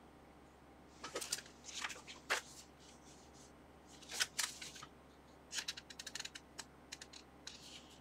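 Paper rustling in short bursts, with a few light clicks and taps, as the sheets of an instruction manual are picked up and handled on a workbench.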